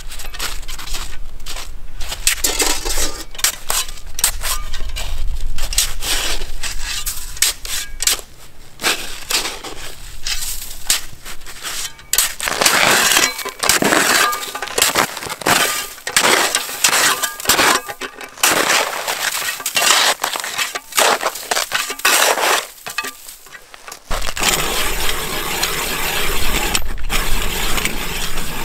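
Footsteps crunching in snow and a shovel digging and scraping snow away down to the lake ice. About 24 s in, this gives way to the steady grinding of a hand ice auger boring into the ice to open a hole for water.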